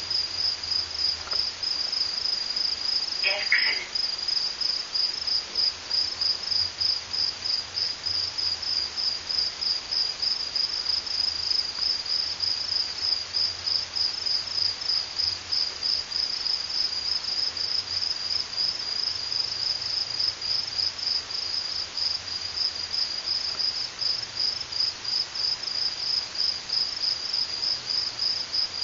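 Cricket chirping steadily in a fast, even run of high-pitched chirps. A brief, unidentified sound breaks in about three and a half seconds in.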